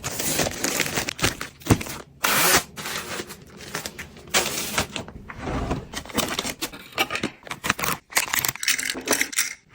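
Irregular rustling, scraping and tapping of household items being handled, with short noisy bursts and sharp clicks between brief pauses.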